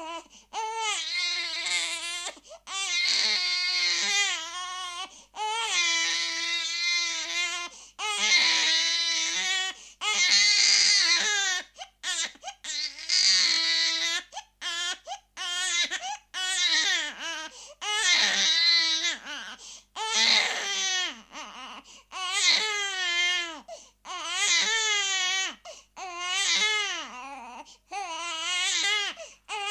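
A baby crying: a chain of long, wavering wails, roughly one every two seconds, each broken off by a quick catch of breath.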